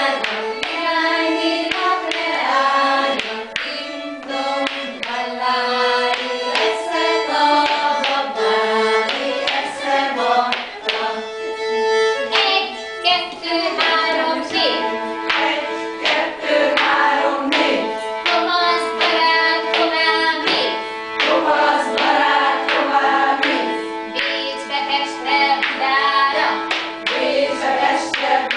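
A group of women singing a Hungarian folk children's song together to live instrumental accompaniment. A steady held note runs beneath the melody, and frequent sharp taps run through it.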